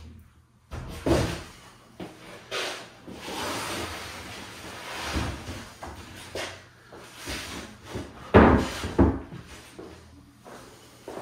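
A large wooden baseboard sheet being laid onto a timber benchwork frame and shifted into place: a series of wooden knocks and thumps with a scraping slide in the middle, the loudest thumps coming about eight to nine seconds in.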